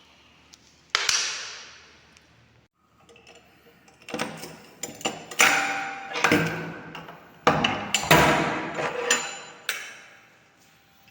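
A string of sharp knocks and thumps in a small room, each ringing out briefly. The first comes about a second in, then a close cluster of them from about four seconds to near ten seconds.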